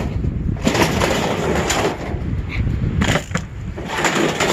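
Strong wind buffeting the microphone in gusts, with a few sharp knocks and clatters of scrap metal being handled about three seconds in.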